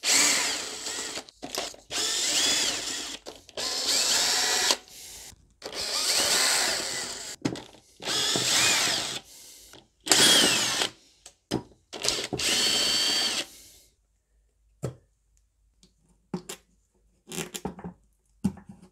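Cordless drill-driver with a T30 Torx bit backing out the bolts of an intake manifold cover, in about seven short runs of a second or so each, its motor speeding up and slowing down each time. A few light clicks near the end.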